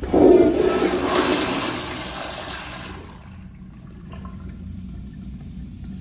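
American Standard Everclean commercial toilet flushing through a tankless chrome flush valve: a sudden loud rush of water at the start that fades over about three seconds.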